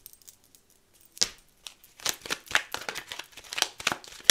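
Deck of tarot cards being shuffled and handled by hand: a quick, irregular run of card snaps and flicks that starts about a second in and grows busier toward the end.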